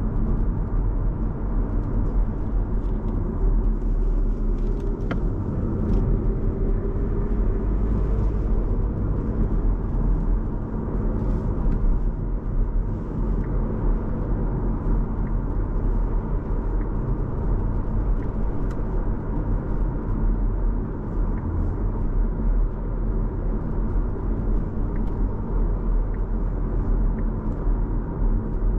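2024 Skoda Kamiq's 1.0 TSI three-cylinder turbo petrol engine and its tyres on the road while driving: a steady low rumble, with the engine note rising slowly from about four to nine seconds in.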